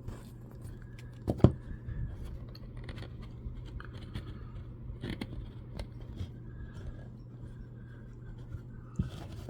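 Handling noises: small knocks, scrapes and clicks, with one sharper knock about a second and a half in, over a steady low hum.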